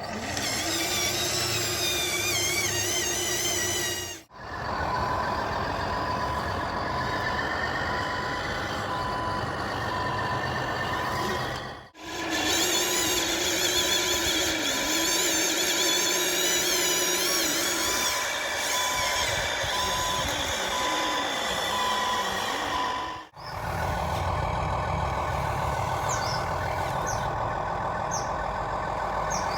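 Remote-control truck's electronic sound module playing a truck engine with a reversing beeper sounding on and off at an even rate through the middle. It comes in a few short clips, each cut off by a brief drop to silence.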